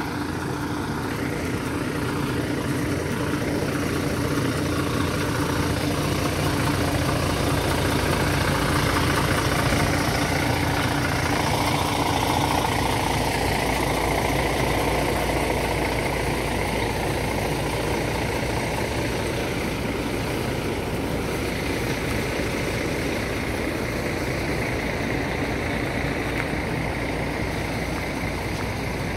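Sleeper coach's diesel engine idling close by, a steady drone that swells a little partway through and then settles.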